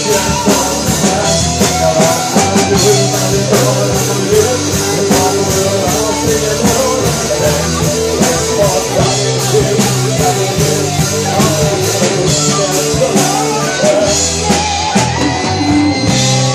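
Rock band playing live: drum kit keeping a steady beat under guitars and bass.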